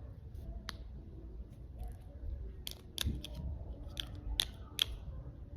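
A series of sharp clicks and snaps from small objects being handled at close range, about seven of them at irregular spacing, bunched in the second half.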